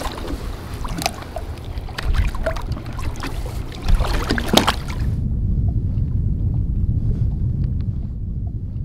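Water splashing and sloshing at the side of a boat as a pike is held in the water and released, with a few sharp knocks. About five seconds in, the sound changes abruptly to a steady low rumble.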